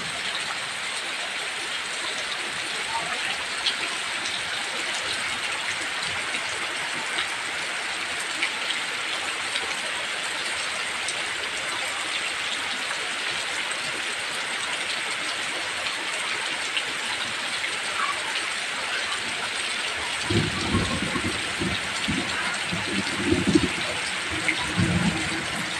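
Heavy rain falling steadily, an even hiss of drops on surfaces. In the last six seconds, irregular low rumbles come and go over it.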